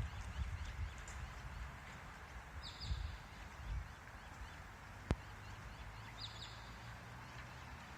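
Kangaroo giving low, guttural clucking calls in short bursts over the first few seconds, then quieter. A bird gives a short high call twice, and there is one sharp click about five seconds in.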